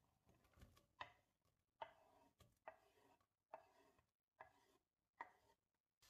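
Six faint, evenly spaced knocks about a second apart, from a knife tapping and scraping on a wooden cutting board as diced onion is pushed off into a stainless steel pot.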